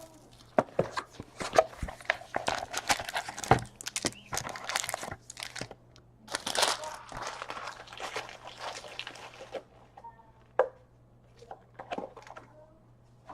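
Trading-card packs and their wrappers being handled, torn and crinkled, an irregular run of crackles and snaps with a longer rustle about six and a half seconds in.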